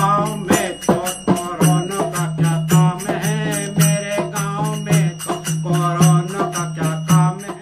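A man singing a Hindi folk song, accompanied by a dholak drum and jingling small hand cymbals (jhanjh) that keep a quick, steady beat.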